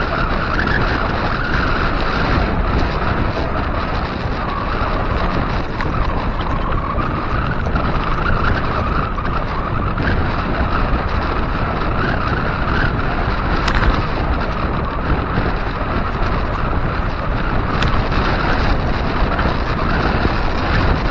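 Steady wind rush on the microphone of a bike-mounted action camera riding at about 19–20 mph, mixed with the rumble of wide 700x45c tyres rolling on a concrete road.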